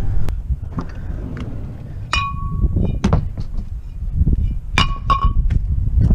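Glass items clinking together several times, two of the knocks ringing briefly with a clear tone, over a steady low rumble of wind on the microphone.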